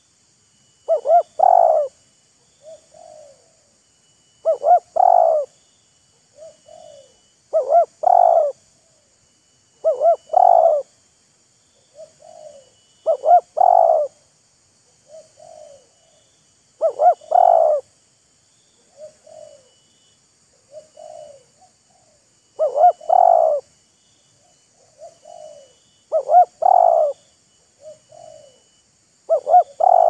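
Spotted doves cooing: a loud phrase of several coos about every three seconds, with softer, shorter coos in between, as the decoy and a wild dove call back and forth.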